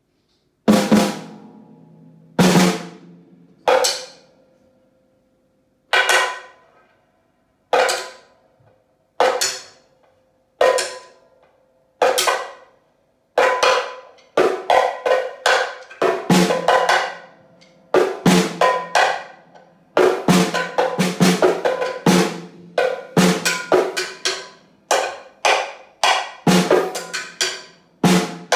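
Drums being played in practice. It starts with single ringing hits about every one and a half seconds, then from about halfway turns into a busier pattern of several strikes a second.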